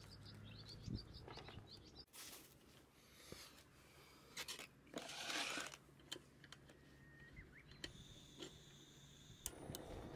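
Quiet outdoor ambience with a few faint bird chirps near the start and two brief bursts of rustling, about two and five seconds in.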